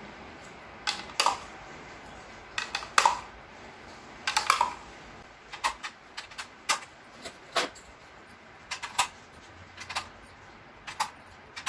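Small plastic pegs clicking as they are pushed one by one into the slots of a plastic memory-game board. The clicks are sharp and irregular, one to two a second.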